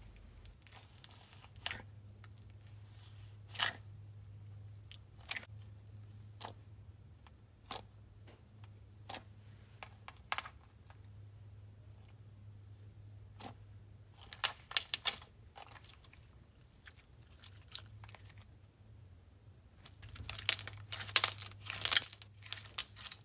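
Glossy slime with tiny foam beads being stretched and squeezed by hand: scattered sticky pops and clicks, with denser crackling runs about two thirds of the way through and again near the end.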